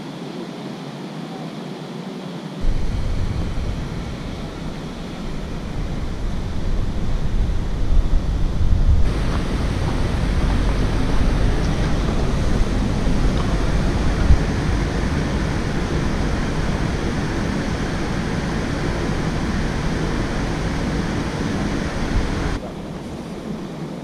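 Wind buffeting an outdoor camera microphone: a steady rushing noise with a heavy, uneven low rumble. It starts abruptly about two and a half seconds in and drops back to a quieter steady hiss near the end.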